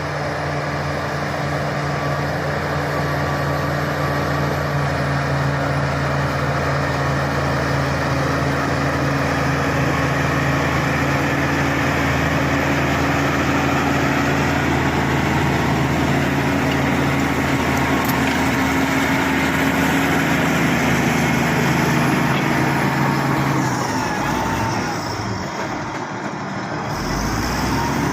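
Bulldozer's diesel engine running steadily. Near the end it dips and wavers briefly, then picks back up.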